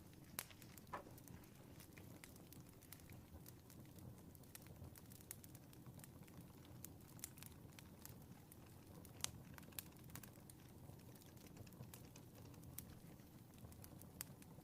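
Fireplace fire crackling faintly: scattered small pops and snaps over a low, steady rumble, with one sharper pop about nine seconds in.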